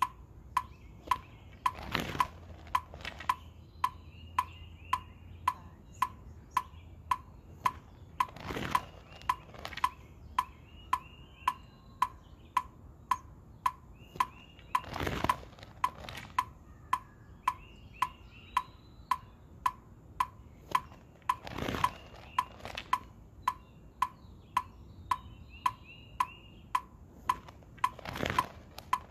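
Metronome clicking steadily at about two clicks a second, with a whoosh from the color guard flag's silk swinging through the air about every six and a half seconds.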